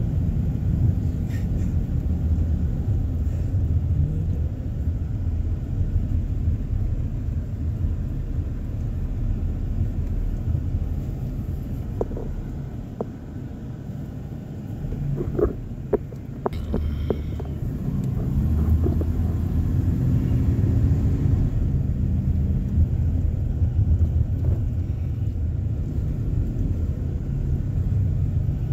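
Car engine and road rumble heard from inside the cabin while driving slowly. It eases off about halfway through, with a few light clicks, then the engine note rises as the car picks up speed again.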